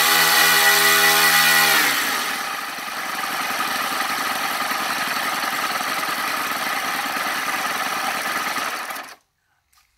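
Twin OS 40 four-stroke model-aircraft glow engines running with propellers turning, at a steady, even speed, then throttled back about two seconds in to a lower, less even idle. The engines stop suddenly near the end, as they are shut down.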